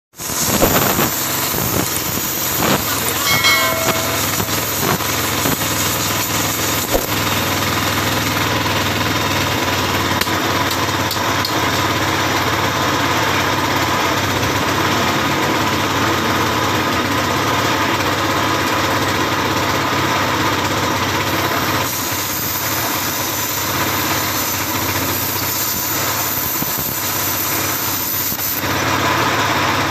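Air plasma cutter cutting thin steel sheet: a loud, steady hissing rush with a low hum beneath it, holding even throughout with a slight dip in level a little after two-thirds of the way through.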